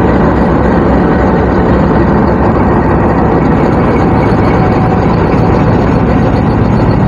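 GEU-20 diesel-electric locomotive's engine running steadily and loud as it hauls a passenger train slowly away from the platform, with the coaches rolling past.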